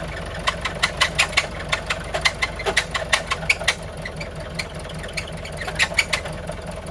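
Engine running with a steady low hum and a fast, irregular sharp clicking or knocking, the strange engine noise being traced. Water is being poured on the fan belt to test it, and the clicking carries on, which the men take as a sign that the fan belt is not the cause.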